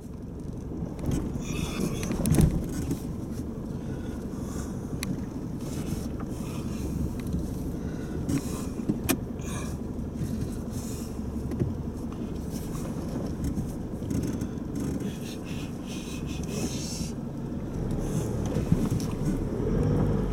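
Four-wheel-drive vehicle engine running steadily at low revs while crawling over a rough off-road track, with scattered knocks and clicks from the body and suspension. One louder knock comes a couple of seconds in, and the engine grows a little louder near the end.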